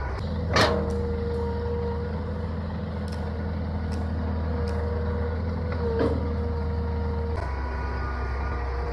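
Excavator's diesel engine running steadily with a steady whine, and a sharp clank about half a second in and again about six seconds in.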